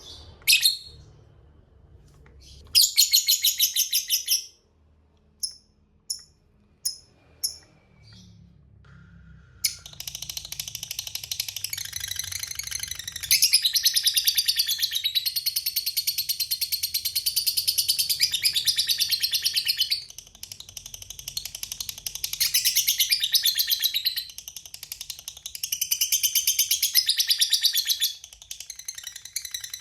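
Lovebird singing its long, rapid chattering trill ('ngekek panjang'), after a few short sharp chirps. The chatter runs unbroken for about ten seconds, then comes back in several shorter bouts.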